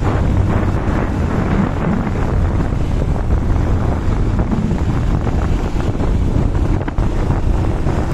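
Wind rushing over the camera's microphone on a moving motorcycle, loud and steady, with the motorcycle's engine running underneath.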